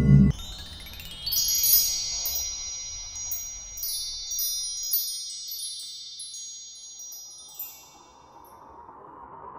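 Wind chimes tinkling: a cluster of high metal tones struck many times over the first few seconds, then slowly ringing away to quiet. A faint rising hiss begins near the end.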